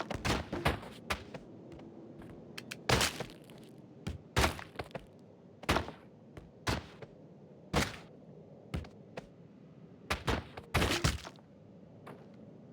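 A series of sharp knocks or cracks, about a dozen, coming irregularly, a second or so apart, some close together in pairs.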